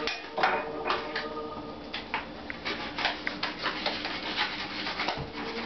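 Plastic packaging crinkling and rustling as it is cut and pulled open with a pocketknife: a run of irregular small clicks and rustles.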